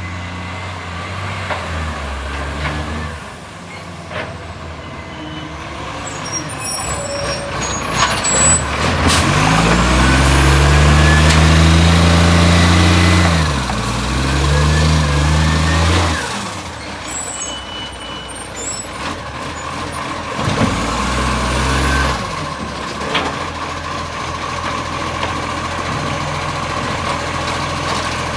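Garbage truck's diesel engine with an exhaust leak, revving up and down; it climbs to its loudest about ten seconds in and drops back about sixteen seconds in. Several sharp knocks are mixed in.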